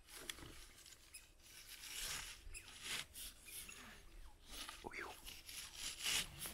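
Irregular rustling and crackling, with a few faint short squeaks.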